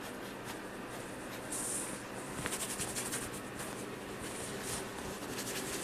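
Faint, scratchy strokes of a paintbrush working oil paint on canvas, followed by a paper towel rubbing paint off the brush.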